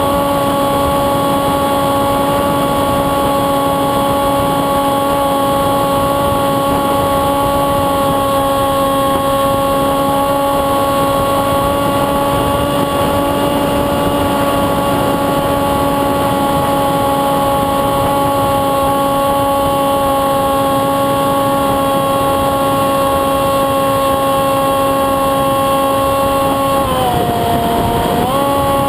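Electric motor and propeller of a Windrider Ele-Bee2 RC flying wing running at steady throttle, a constant pitched whine over a hiss of air. Near the end the pitch dips briefly as the throttle is eased, then comes back slightly higher.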